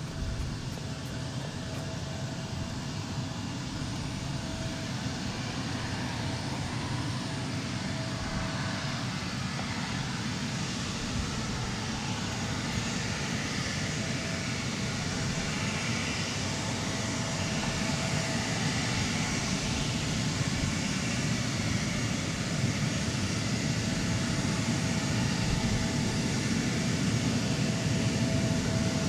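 Twin turbofan engines of a J-Air Embraer E-Jet regional jet running as it taxis: a steady jet rumble, with a faint whine fading in and out, growing gradually louder as the aircraft comes nearer.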